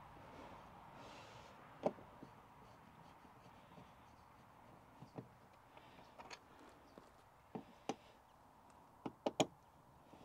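Scattered clicks and knocks of the door-mirror base being worked loose and taken off a car door: one sharp knock about two seconds in, a few lighter taps, and a quick run of three clicks near the end.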